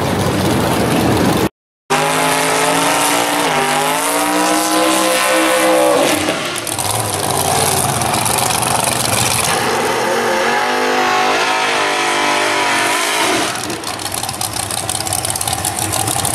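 Drag-car engine revving hard through a burnout, the pitch climbing and then dropping twice over a hiss of spinning tyres, before settling to a lower, rougher running. Near the start another car's engine is heard pulling away, cut off by a brief dropout.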